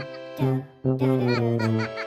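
Upbeat children's background music with short, repeated notes and a few gliding cartoon-like sounds.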